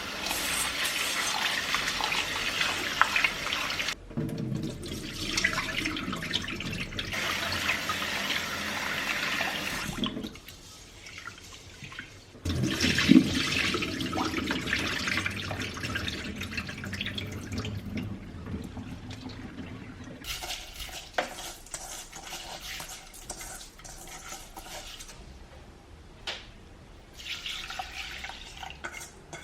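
Water running from a kitchen tap in three spells, turned off and on again, with a quieter stretch of small clicks and knocks after about twenty seconds.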